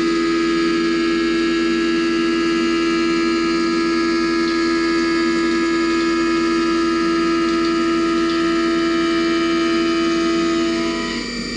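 Haas Mini Mill 2 CNC vertical mill cutting a 6 mm steel plate, giving a steady whine of several held tones as the spindle and cutter work through the cut. The main tone stops about a second before the end.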